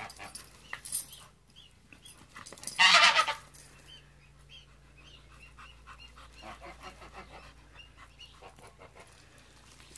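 A chained dog gives one loud bark about three seconds in, with a few light clinks of its chain in the first second.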